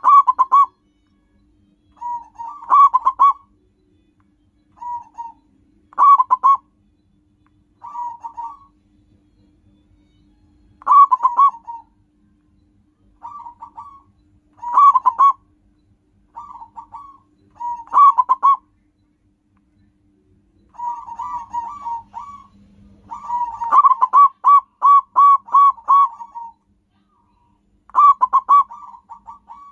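Zebra dove (perkutut) cooing: short phrases of rapid staccato notes repeated every one to three seconds, with a longer run of notes about three quarters of the way through.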